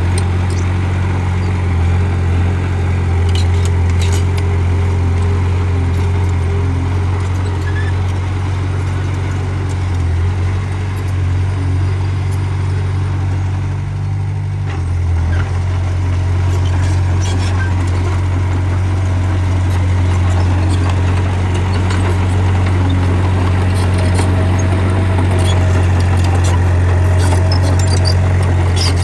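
Bulldozer's diesel engine running steadily under load, dipping briefly about halfway through before picking up again, with occasional faint clicks and clanks.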